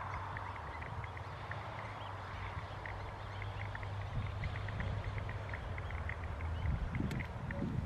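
Wetland outdoor ambience: many short high chirps from small calling animals scattered through, over a steady low rumble of wind on the microphone that gusts more heavily near the end.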